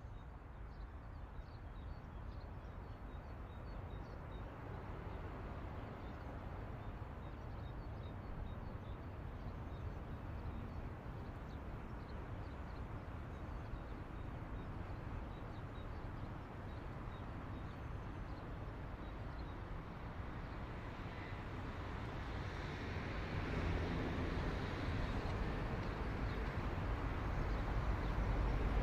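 Outdoor street ambience: a steady rumble of traffic with faint bird chirps, the traffic growing louder over the last few seconds.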